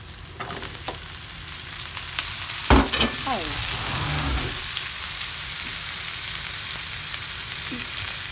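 Sliced bitter melon frying in a pan: a steady sizzle that swells just after the start as the ampalaya goes in. A single sharp knock comes near the third second, with a brief "oh" just after it.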